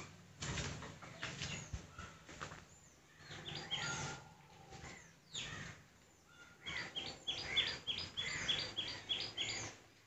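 Green parrots calling in a tree: a run of short, shrill, downward-sliding calls repeated about four times a second in the second half, after a couple of seconds of scattered noise.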